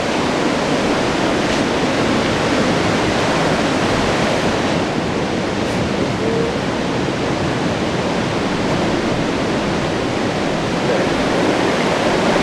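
Mountain stream rushing down rock cascades and chutes: a steady, even roar of water.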